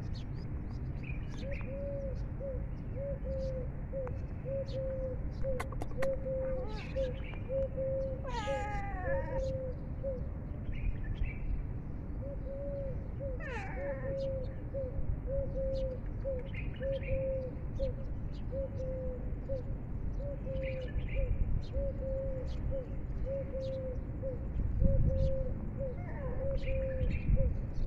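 Cat meowing twice, each a falling meow of about a second, about a third of the way in and again near the middle. Under it a short note repeats about twice a second almost throughout, with faint chirps and a low rumble.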